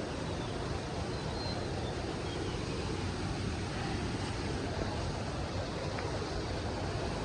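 Waterfall water rushing in a steady, even roar.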